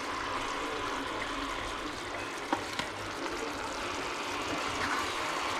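Sausage curry cooking in a pot on the stove, a steady hiss with two light clicks about two and a half seconds in.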